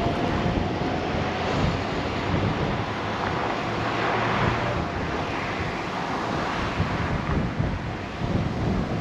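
Wind buffeting the microphone of a camera on a moving bicycle: a steady, fluctuating rush of air mixed with road noise. A faint steady whine comes and goes.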